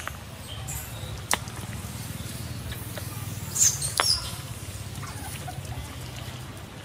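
Macaque giving a couple of brief high squeals about three and a half seconds in, the sound of a monkey that has just been pinched. There are two sharp clicks, one about a second in and one right after the squeals, over a low steady rumble.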